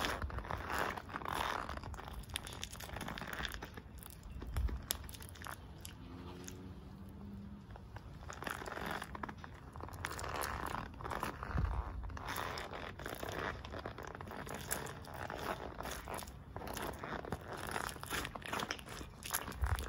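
White Nike Air Force 1 Mid sneakers stepping on and grinding mashed bananas on concrete: uneven squishing and scuffing of the rubber soles on fruit and pavement. Heavier foot thumps come about five and twelve seconds in.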